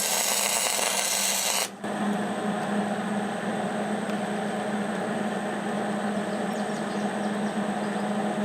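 115-volt MIG welder's arc crackling and frying as a short bead is laid on the crack in a steel tractor wheel rim to seal an air leak. It cuts off abruptly about two seconds in, leaving a steady low hum.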